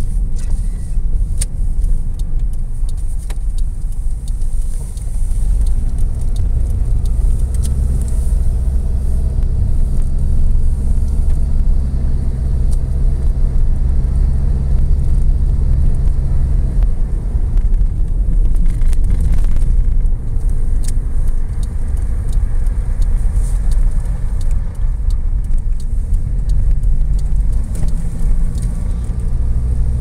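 A car driving on snow-packed roads, heard from inside the car: the engine and tyres make a steady low drone, and the engine note shifts about two-thirds of the way through.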